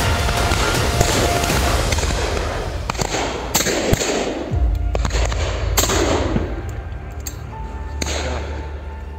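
Several shotgun shots, a second or two apart, each with a short echo, over background music.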